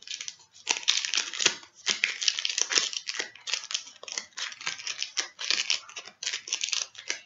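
Foil wrapper of a Pokémon card booster pack crinkling and tearing as it is opened, a dense, irregular run of crackles.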